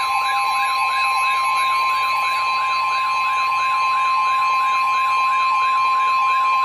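Weather alert radio alarm: an electronic siren warbling up and down about three times a second over a steady high tone, the NOAA Weather Radio warning alarm tone that comes before a warning is read.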